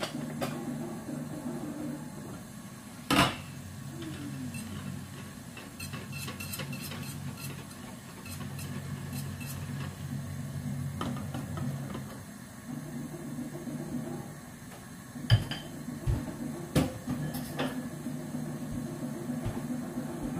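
Kitchen clatter of a saucepan lid and a glass bowl: a metal lid clanks off the pan about three seconds in, small clinks follow as eggs are tipped from the glass bowl into the simmering water, and a few sharp knocks come near the end, over a steady low hum.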